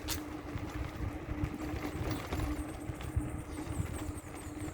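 Wind buffeting the microphone and road noise while riding a bicycle, over a steady low hum.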